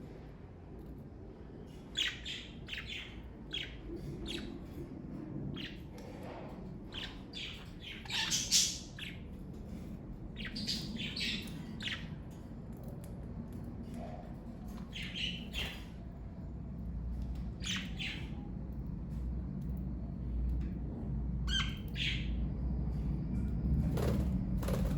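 Pet budgerigars (Australian parakeets) chirping, with short, separate chirps and squawks coming irregularly, over a low steady rumble.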